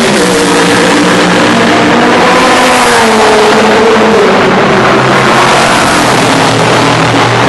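GT-class race car engines at high revs, loud. The pitch drops sharply right at the start as one car goes past, then sags and climbs again as more cars come down the straight.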